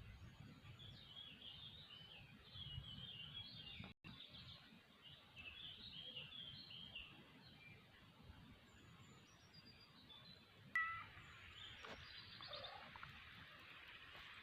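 Small birds chirping and singing faintly in rapid short notes, with a sudden louder sound just before eleven seconds in.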